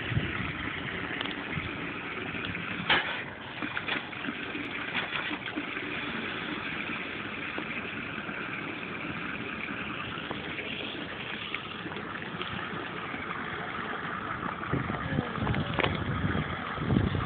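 Steady rushing of water pouring from a garden hose into a plastic basin, over a constant motor-like hum. A few short knocks and, near the end, some heavier low bumps.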